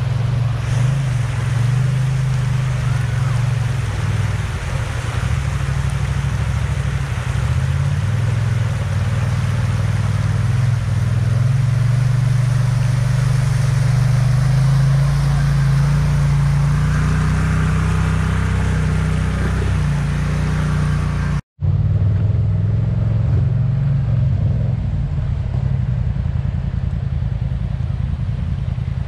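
An off-road vehicle's engine running steadily over the rush of river water, its pitch rising and falling a little. The sound drops out completely for a moment about two-thirds through, then the engine and water carry on.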